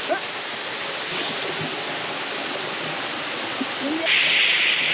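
Small waterfall cascading over rocks into a shallow forest stream: a steady rush of falling water that grows louder and hissier about four seconds in.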